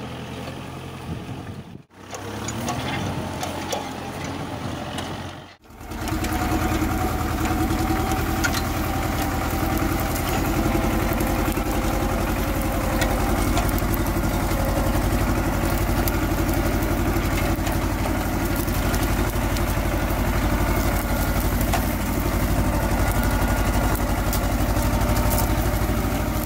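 Tractor's diesel engine running steadily under load while pulling a mounted plough through the soil. The sound drops out sharply twice in the first six seconds, then runs on unbroken.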